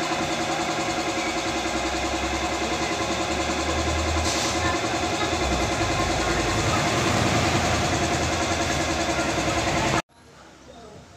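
A small engine idling steadily, an even pulsing hum that holds its pitch, then stops abruptly near the end.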